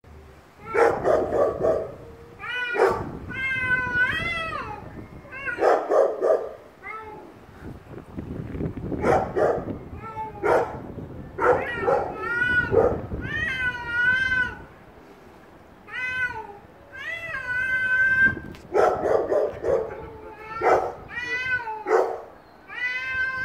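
Two domestic cats squaring off, trading long wavering yowls that rise and fall in pitch with lower growls between them, over and over: the warning calls of a cat fight standoff.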